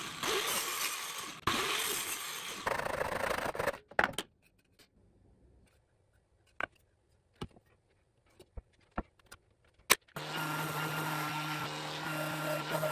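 A Ryobi sliding miter saw running and cutting a poplar board for the first four seconds or so. Then a quiet stretch with a few sharp clicks and knocks, and from about ten seconds in a Ryobi orbital sander running with a steady hum.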